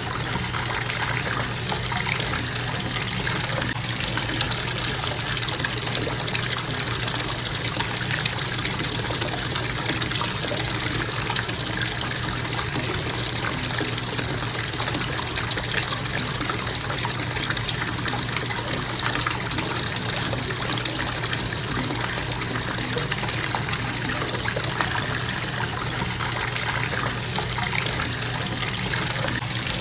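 Bathtub faucet running in a steady, unbroken stream into the tub.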